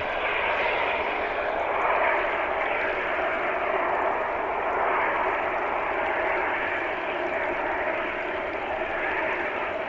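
Steady rushing of water circulating through a fish holding tank, heard underwater: an even hiss-like wash that does not change.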